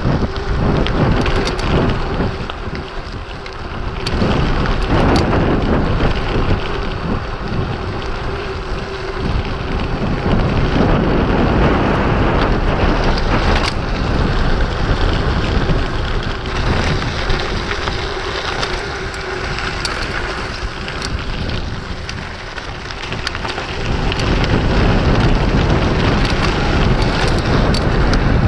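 Wind buffeting the camera microphone on a mountain bike descending fast, with a heavy low rumble of the tyres on the dirt and gravel road and many scattered rattles and clicks from the bike over the rough surface. It grows louder again in the last few seconds.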